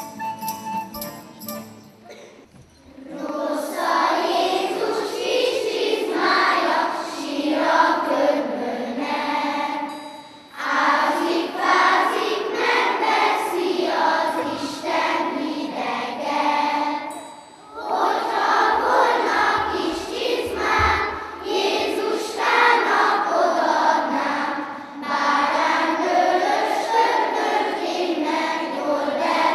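Children's choir singing a song in long phrases, each broken off by a short pause for breath.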